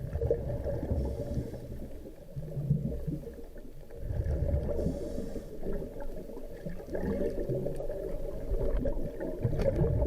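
Low, surging water noise around an underwater camera, swelling and fading every second or two, with a faint steady hum and a few faint clicks.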